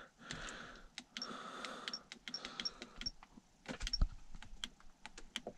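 Small plastic buttons on a dash cam pressed again and again while stepping through its date and time settings, giving soft, irregular clicks.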